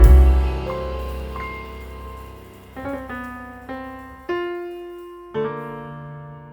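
Background piano music: slow chords and single notes, each ringing and fading before the next.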